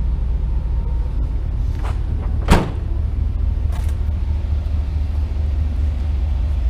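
Chevrolet Silverado pickup's tailgate slammed shut once, about two and a half seconds in, over a steady low rumble.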